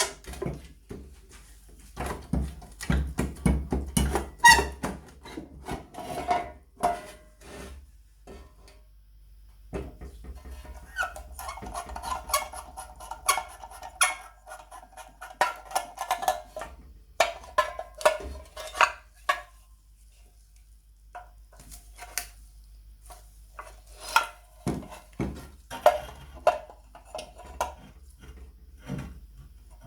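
Hand work on parts of an old lamp: irregular clinks, taps and knocks of metal and wood being handled, with a stretch of squeaking, scraping sound around the middle.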